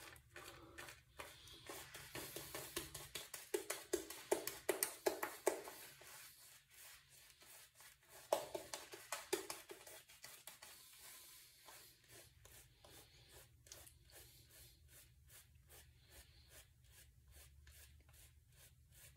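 Boar-bristle shaving brush working shaving cream into a lather on the face and neck: faint, quick scratchy strokes in a rapid rhythm, about four a second, louder in the first half and fainter in the second.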